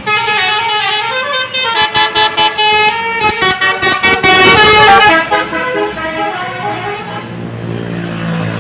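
Bus 'basuri' telolet air horn playing a tune of stepped, multi-tone notes, with a quick run of short toots about two seconds in; it grows quieter after about five seconds.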